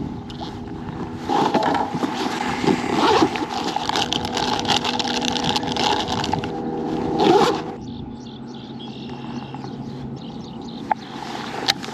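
Torqeedo electric kayak motor humming steadily. Wind buffets the microphone over it and then drops away about eight seconds in, leaving the hum.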